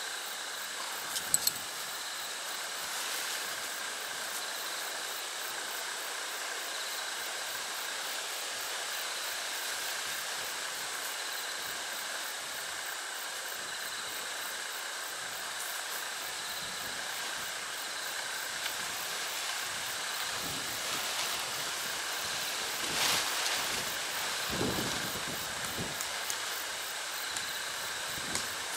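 Steady outdoor hiss with a few faint high steady tones, broken by soft knocks and rustles as a lightweight tent's fabric and guylines are handled. One brief louder rustle and a couple of low thumps come about three quarters of the way through.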